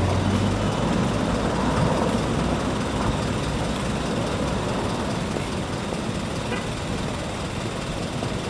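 Military aircraft passing over, a steady broad roar that slowly fades, mixed with the noise of road traffic.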